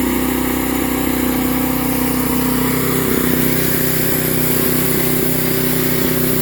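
Portable band sawmill's engine running steadily at about quarter throttle, with a whine that falls in pitch over the first few seconds.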